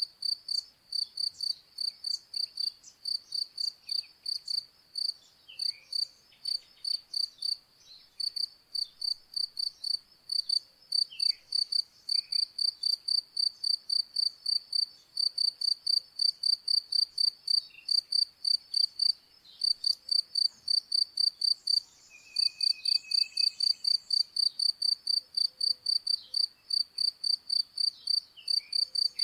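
A cricket chirping steadily in a quick, even rhythm of about four high-pitched chirps a second, pausing briefly now and then. Faint short bird calls come in here and there beneath it.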